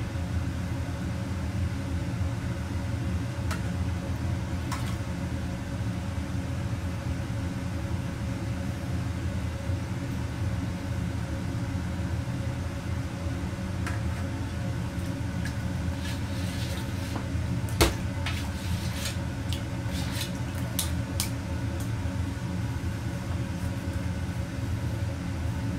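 Steady low hum of a commercial kitchen's ventilation running. In the second half a steel ladle clinks lightly against the wok and the can several times, with one sharp clink about two-thirds of the way through.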